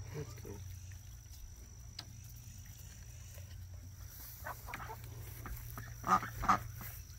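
Ducks and chickens calling softly while they forage: a few short calls a little before five seconds in, then two louder ones about six seconds in, over a steady low hum.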